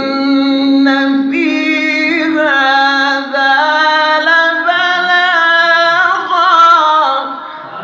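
A man's voice in melodic Quran recitation, drawing out one long vowel: a note held steady for about three seconds, then climbing through ornamented turns and wavers before it ends near the close.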